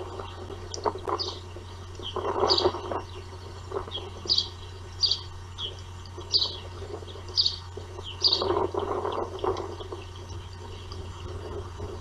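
Osprey calling at the nest: a series of short, high chirps, about one or two a second. Two longer bursts of rustling noise come in, about two seconds in and again about two-thirds of the way through, over a steady low hum.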